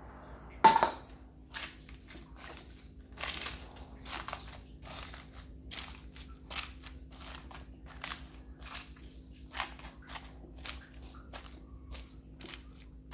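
Cabbage leaves crunching and squeaking in short, irregular crunches as a wooden spatula presses and turns them in a pot, with one sharp knock about a second in.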